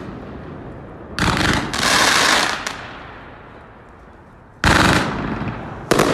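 Fireworks show going off: three sudden loud salvos of bangs and crackling, about a second in, near four and a half seconds, and again near the end, each trailing off over a second or so.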